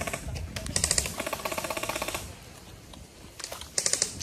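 Airsoft electric gun firing full-auto in bursts of rapid, even clicking over the whir of its motor and gearbox. A burst of about a second and a half is followed by a pause, then a short burst and another burst starting near the end.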